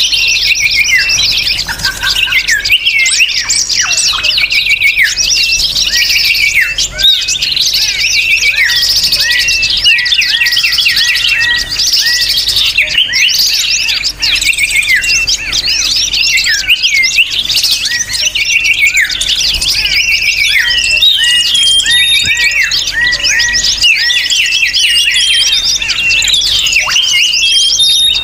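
A dense, unbroken chorus of many small birds chirping and twittering fast over one another, high-pitched, played as a lure recording to draw birds in.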